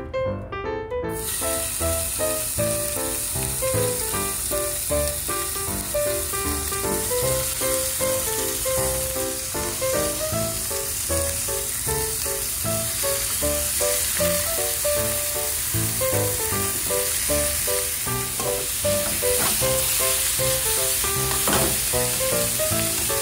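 Thinly sliced pork frying in an oiled nonstick frying pan, a steady sizzle that starts about a second in, over background music.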